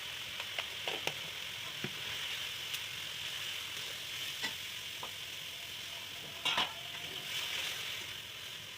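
Turmeric and ground spices frying in hot oil in a pan, a steady sizzle, with a spatula clicking and scraping against the pan now and then and a short clatter about six and a half seconds in.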